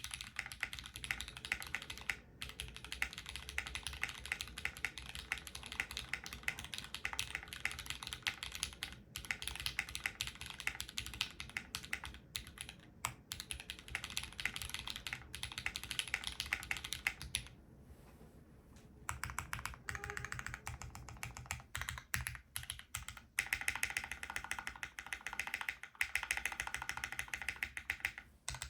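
Fast, continuous typing on a gasket-mounted custom mechanical keyboard with lubed Cherry MX Black Hyperglide linear switches, an aluminium plate and GMK keycaps: a dense stream of key clacks, with a short pause about two-thirds of the way through before the typing picks up again.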